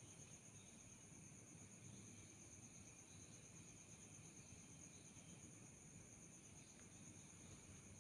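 Faint, steady chorus of crickets trilling high and continuously over a low background hiss.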